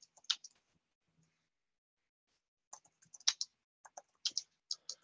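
Typing on a computer keyboard: a short run of key clicks, a pause of about two seconds, then another quick run of keystrokes.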